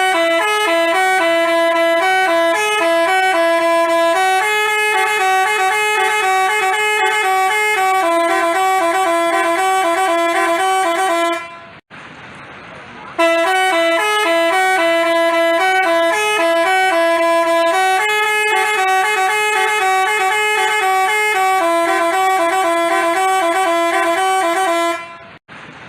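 Telolet basuri musical bus horn playing a melody of quick stepped notes. It plays two passages of about twelve seconds each, with a short break between them, and cuts off shortly before the end.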